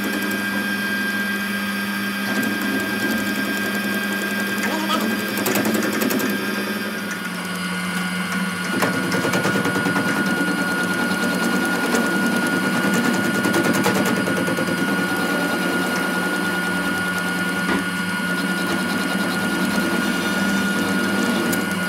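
Metal lathe running with a steady hum while its cutting tool works a steel pinion blank; from about nine seconds in, a rapid grating cutting noise joins and grows a little louder.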